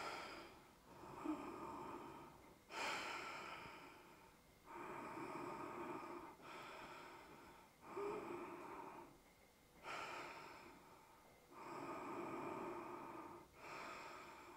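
A woman's slow, audible breathing close to the microphone: about nine soft, hissy inhales and exhales of a second or so each, with short pauses between them, as she holds a yoga pose.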